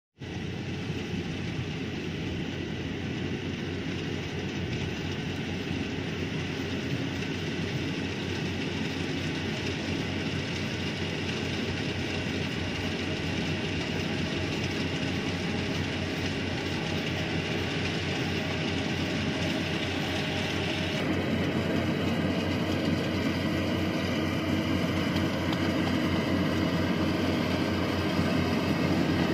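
Yanmar YH850 rice combine harvester running under load while cutting rice: a steady diesel engine and machinery drone that grows gradually louder as the machine comes closer, its tone shifting about two-thirds of the way through.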